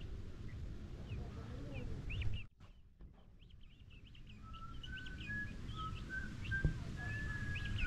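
Small birds chirping outdoors, with a long whistled note wavering up and down in pitch through the second half. The sound cuts out briefly about two and a half seconds in, and there is a single light knock near the end.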